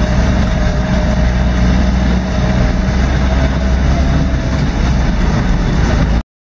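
A 4x4's engine and drivetrain running steadily on a rough dirt track, heard from inside the cabin: a low rumble with a faint steady whine. It cuts off suddenly near the end.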